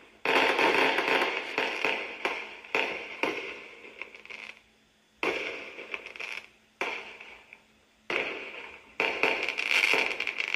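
Fireworks display: a string of bursts, each a sudden bang that fades off into crackle, with a short lull about five seconds in.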